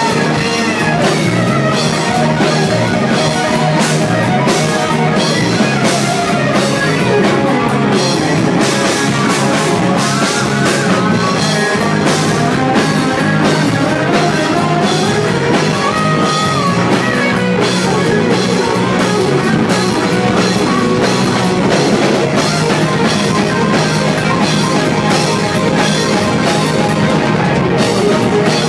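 Live rock band playing: an electric guitar takes a solo with bending, gliding notes over a pounding drum kit.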